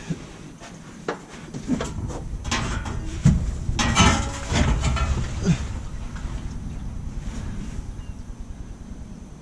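Knocks, clunks and scrapes of parts being moved around under a vehicle during fuel-tank work, bunched in the first half.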